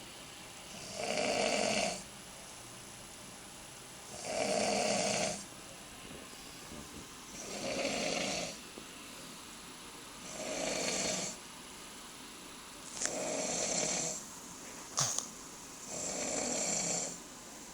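A man snoring in his sleep: six snores, one about every three seconds and each about a second long, with quieter breathing gaps between them. Two short sharp clicks come between the later snores.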